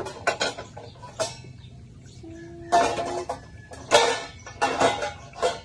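Dishes and cutlery clattering and clinking in hand dishwashing: a quick run of sharp knocks, loudest about three and four seconds in, with a few short pitched tones between them.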